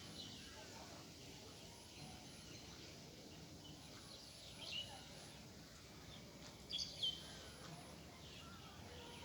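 Bird calls over steady outdoor background noise: a few short, sharp chirps that drop in pitch and end on a brief held note, the clearest about halfway through and a double one a couple of seconds later.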